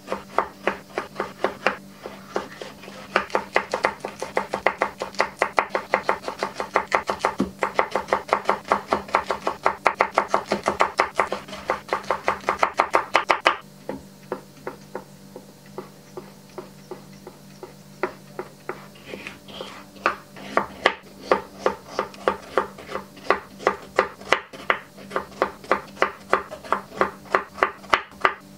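Kitchen knife chopping tomato, sausage and carrot on a wooden cutting board: quick, regular knocks of the blade on the board, several a second. They thin out for a few seconds around the middle, then pick up speed again near the end.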